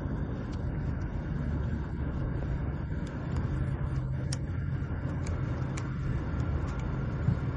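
Bus engine running with a steady low drone, with scattered light rattles and clicks.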